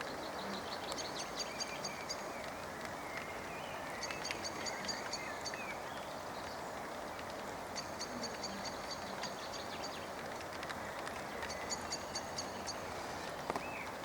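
Outdoor evening ambience: a steady background hiss, with short trains of rapid high-pitched ticks that repeat every few seconds, each lasting about a second, and a few faint bird chirps.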